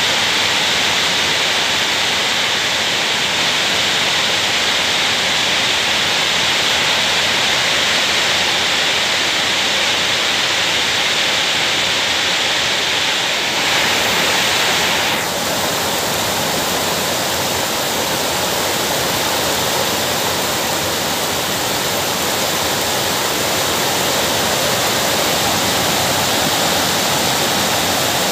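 Steady heavy rain falling, a dense even hiss, with a brief change in its tone about halfway through.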